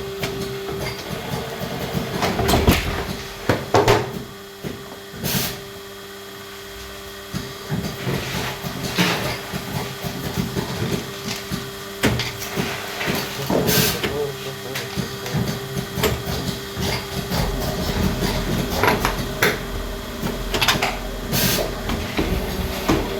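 Cable-making machinery running with a steady hum, with irregular clicks and knocks from work going on around it.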